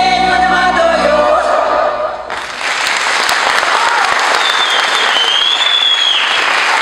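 The last notes of a women's folk ensemble's song with music, cut off about two seconds in by loud audience applause that carries on steadily.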